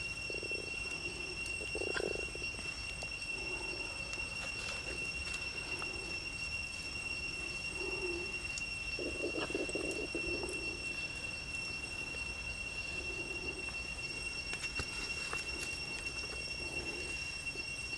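A dove cooing in short low hoots, repeated every second or so, with one longer, louder call about halfway through. A steady high-pitched whine runs underneath.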